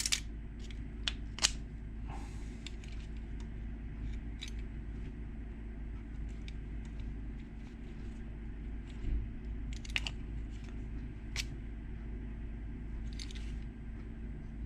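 Sparse small clicks and ticks of a car hatch lock cylinder's wafers and springs being handled during rekeying, over a steady low hum.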